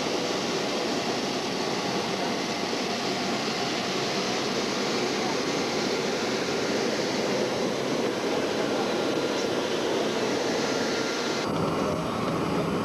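Steady rushing noise of an airliner at close range, unchanging in level, that switches abruptly to a slightly different texture near the end.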